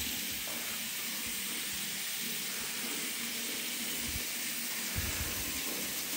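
Washroom sink tap running steadily, with water splashing into a ceramic washbasin over hands rinsed under it.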